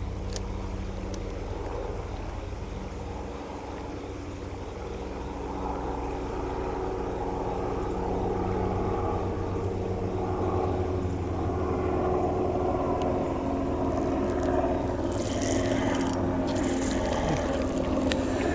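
A steady engine drone with a low hum and several held tones, slowly growing louder over the second half. Near the end come a few brief, sharp, noisy sounds.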